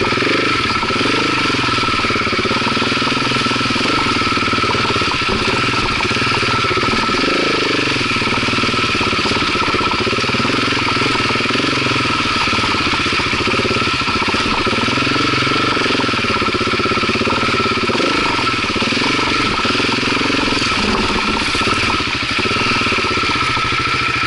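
Off-road motorcycle engine running on a rocky uphill trail, its pitch rising and falling as the throttle is worked on and off.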